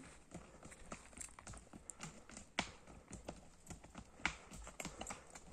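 Horses' hooves clopping at a walk: irregular knocks and clicks, with two louder hoofbeats about two and a half and four seconds in.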